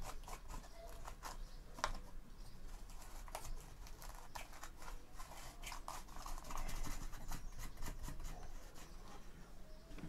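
Hand twisting the plastic hub cap off an electric fan's blade shaft: irregular small plastic clicks and scrapes, with the blade rattling on its shaft.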